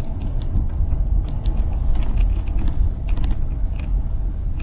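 Car driving slowly, heard from inside the cabin: a steady low rumble of engine and road noise, with scattered light clicks and ticks.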